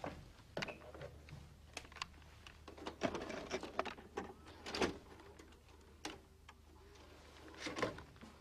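Irregular light taps, clicks and rustles, as of a pencil and paper being handled at a desk, over a faint steady low hum.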